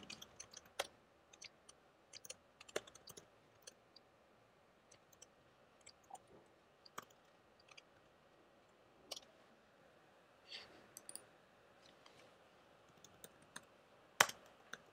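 Faint, scattered clicks from a computer keyboard and mouse, spaced irregularly, with the sharpest one near the end.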